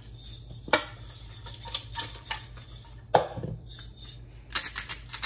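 Coarse salt being seasoned from glass jars over a bowl of cut corn tortillas: scattered small clicks and clinks of the jars in the hands, with a sharp knock just under a second in and a louder one about three seconds in, then a quick run of ticks near the end.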